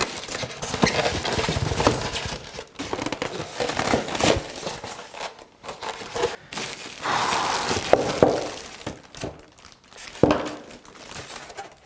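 Plastic and cardboard packaging crinkling and rustling as a boxed appliance is unpacked by hand, with a few sharp knocks and clacks among it.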